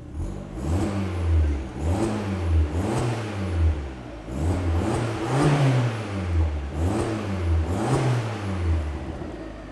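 Abarth 500's turbocharged 1.4 four-cylinder engine revved repeatedly, its pitch rising and falling about once a second and settling back near the end, through a 3-inch downpipe and 2.5-inch stainless cat-back exhaust with its back box fitted. A nice but still fairly quiet exhaust note.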